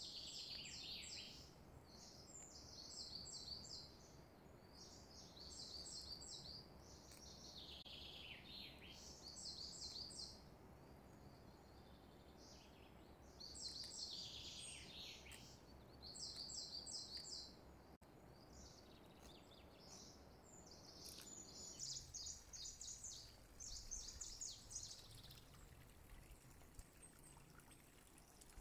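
Faint bird chirping and twittering: repeated bursts of short high trills, with a few calls sliding downward in pitch.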